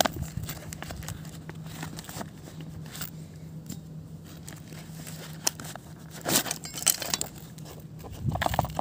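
Handling noise from a nylon tool pouch with metal snap buttons being opened: fabric rustling and several sharp clicks, then louder crinkling of plastic wrapping near the end as the tool is pulled out.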